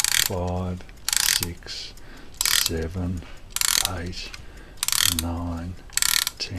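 Ratchet click of an 8-day carriage clock's mainspring being wound with its brass key: a short burst of clicks with each turn, six turns about a second apart.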